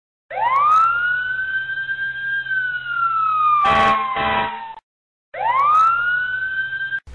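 A wailing siren: its tone rises quickly, holds, then slides slowly down and stops, then rises again about five seconds in and cuts off abruptly. In the drill it stands for the earthquake alarm.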